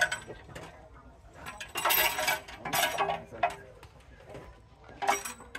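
Metal tools and engine parts clinking and tapping as they are handled, in short separate bursts about two, three and five seconds in.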